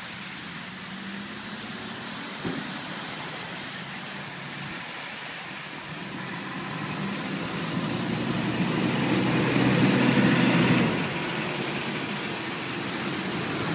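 Motor vehicles driving through standing floodwater: a steady hiss of tyres on the wet, flooded road with engine hum. One vehicle grows louder as it passes close, loudest about ten seconds in, then falls away quickly.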